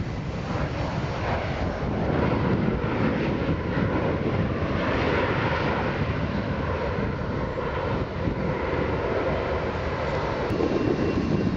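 Boeing 737-900's CFM56-7B jet engines running steadily as the airliner rolls along the runway, a continuous dense jet noise with no break.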